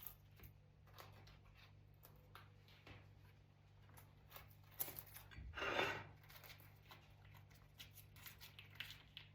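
Faint scraping and rustling as a baked cupcake in its paper cup is cut open with a knife, with one louder rasp about six seconds in.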